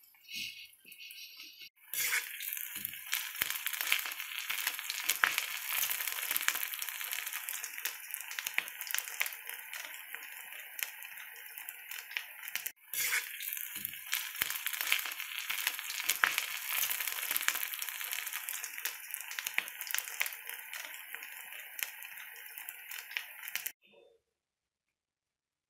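Potato fingers deep-frying in hot oil in a wok: a steady crackling sizzle with many small pops. It breaks off for a moment about halfway through, starts again, and stops shortly before the end.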